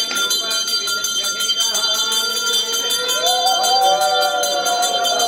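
A hand bell rung continuously for aarti, a steady fast ringing. About three seconds in a conch shell is blown in one long held note that slides up as it starts.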